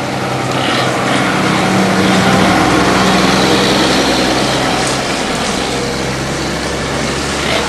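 A motor running steadily, a low hum with a hiss over it, swelling slightly in the first couple of seconds.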